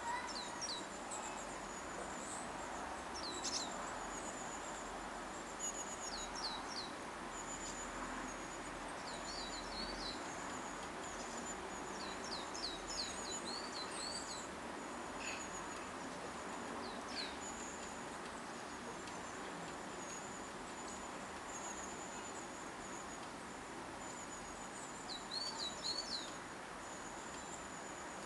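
Small garden birds calling: high, thin notes and short falling chirps in groups of two to four, scattered throughout, over a steady background hiss.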